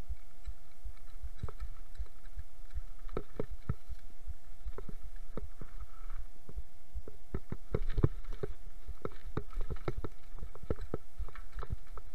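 Mountain bike clattering over a rough, rocky forest singletrack on a descent: irregular low thumps and knocks from the wheels and frame, densest and heaviest about eight seconds in.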